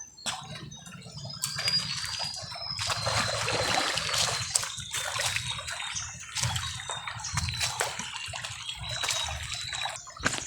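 Water splashing and sloshing in many short, irregular splashes, as shallow floodwater is stirred while fishing with a net.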